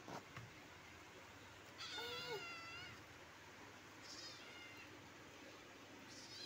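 Small kitten meowing: a longer, high meow about two seconds in, a shorter one about four seconds in, and another starting right at the end.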